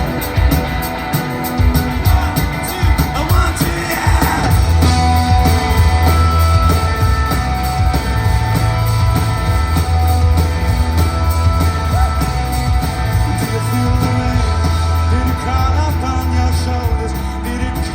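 Live rock band playing, with singing over electric guitars, bass and drums. A heavy low bass swells in about four and a half seconds in and holds under the rest.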